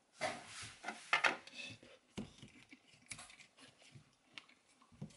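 A cardboard carton of cream being cut open and handled: rustling and scraping in the first two seconds, then scattered small clicks and ticks.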